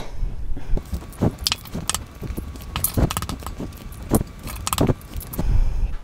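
Eggs being cracked against the rim of a small ceramic bowl: a run of sharp, irregular taps and clicks of eggshell on the bowl. A low rumble comes in near the end.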